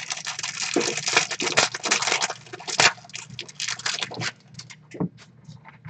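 Plastic wrapper of a 2016 Elite football card pack being torn open and crumpled: dense crinkling for about three seconds, then scattered crackles and ticks as it comes off the cards.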